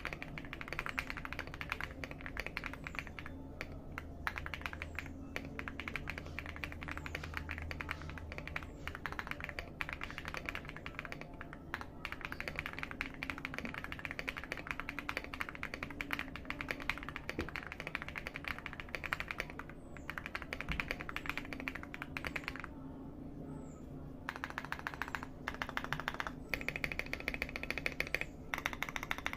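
Leobog Hi75 mechanical keyboard with Akko V3 Cream Yellow Pro linear switches being typed on fast and continuously, a rapid run of key clicks. The typing stops briefly about three-quarters of the way through, then resumes.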